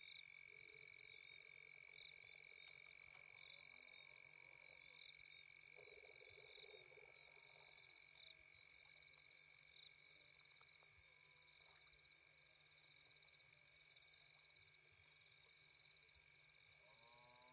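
Night insect chorus: a steady, rapidly pulsing high trill over a second steady, lower drone. Faint low calls sound twice, about half a second in and around six seconds in.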